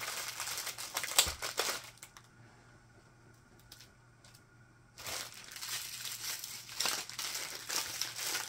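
Plastic crinkling as the rolled diamond-painting canvas and the baggies of drills banded to it are handled. It comes in two spells, with a quieter gap of about three seconds in the middle.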